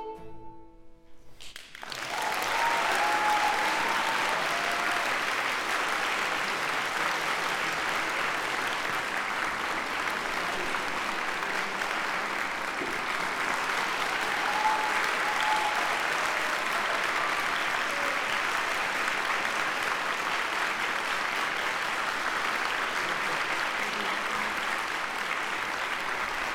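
The final chord fades into a short hush, then an audience breaks into steady applause about two seconds in.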